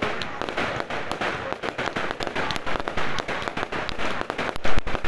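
Aerial firework shells bursting in quick succession over a dense run of sharp cracks and pops, with one much louder bang near the end.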